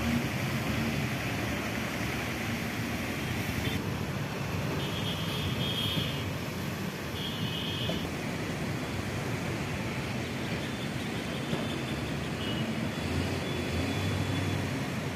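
Steady road traffic: vehicle engines running with a constant hiss of noise over them.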